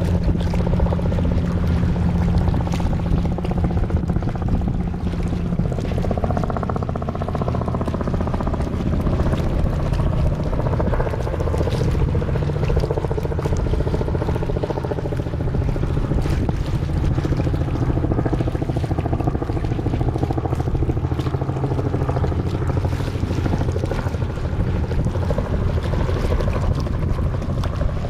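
A boat engine running with a steady low drone.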